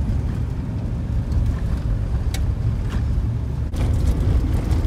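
Steady low rumble of a four-wheel drive's engine and tyres heard from inside the cabin while driving on a dirt track, with a few light ticks. The sound breaks off for a moment about three-quarters of the way through, then carries on the same.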